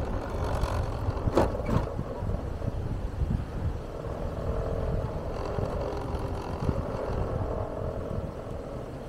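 Vehicle driving slowly, with steady low road and engine rumble. A couple of sharp knocks come about a second and a half in, and a steady hum runs through the middle.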